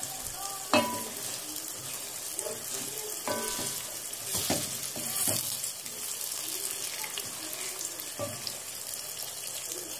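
Beaten eggs sizzling in hot oil and masala in a pot while a wooden spoon stirs them slowly, with a few light knocks of the spoon against the pot.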